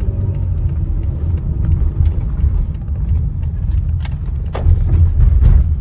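Car driving, a steady low road rumble from inside the cabin with scattered light clicks and rattles, growing louder near the end.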